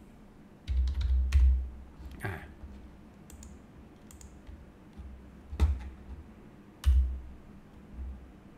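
A few separate keystrokes on a computer keyboard, spaced out rather than in a fast run, with dull low thumps between them, the loudest about a second in.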